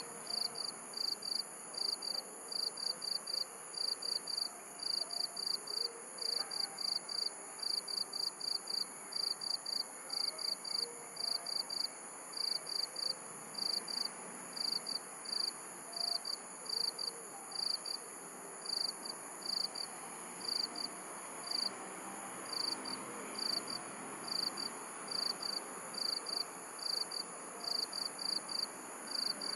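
Crickets chirping at night in short, evenly pitched chirps, about three a second in loose groups, over a steady high-pitched insect whine and faint background noise.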